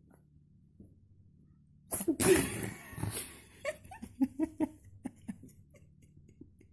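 A cat sneezing: a loud sudden sneeze about two seconds in and a second about a second later, followed by several short snuffling sounds.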